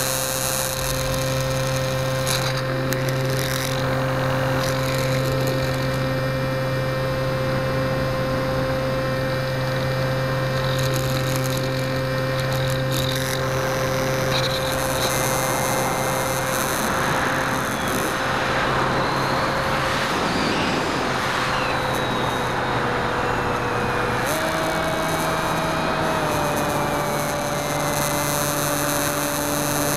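Electric motor and pusher propeller of a Skywalker 1900 foam RC plane, heard through the onboard camera: a steady whine of several tones. It dips slightly past the middle, then steps up in pitch about three-quarters of the way through as the throttle is raised, with a rush of wind around the middle.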